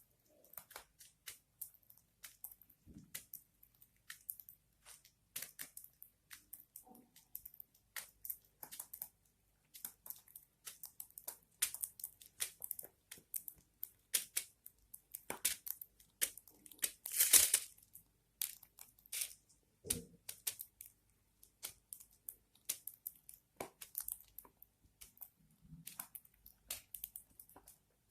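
Irregular scratchy clicks and crackles of budgies moving about in a nest box, with one louder rasping burst about halfway through.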